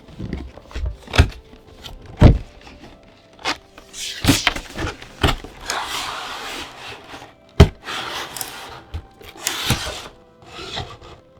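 Cardboard and plastic packaging of a trading-card collection box being handled and opened by hand: irregular taps and thuds, with stretches of scraping and rustling between them.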